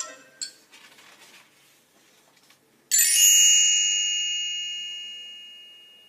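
A single high bell chime, struck once about three seconds in and fading slowly over the next few seconds: the read-along's cue to turn the page.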